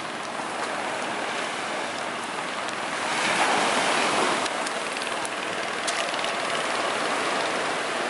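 Surf washing onto the beach: a steady rushing that swells for about a second and a half some three seconds in, with a few faint clicks.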